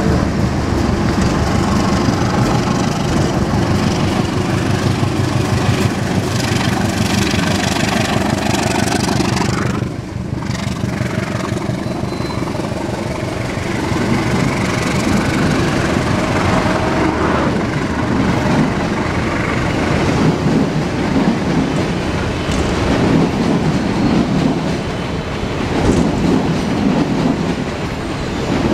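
Diesel locomotive's engine running as it approaches hauling a passenger train. About ten seconds in, after a brief dip, the passenger coaches roll past close by with a steady rumble of wheels on rail and some clickety-clack.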